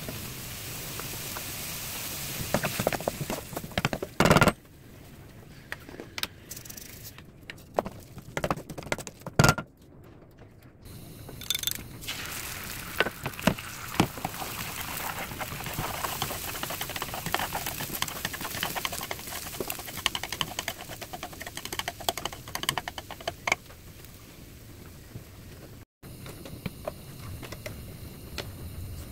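Stove-top cooking: a wooden spatula scrapes and taps a frying pan while kimchi is stir-fried, then chopsticks click against a rectangular egg pan as eggs are scrambled, over a light frying crackle. Many small clicks and scrapes, with two loud knocks in the first ten seconds.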